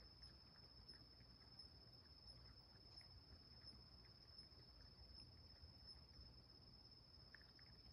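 Faint sound of a cat lapping water from a small puddle on a rock, quick soft laps, under a steady high-pitched whine.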